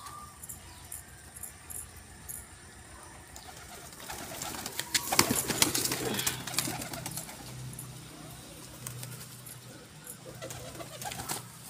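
A flock of domestic pigeons cooing and shuffling while feeding on the ground, with a louder flurry of rustling and clattering from about four to seven seconds in.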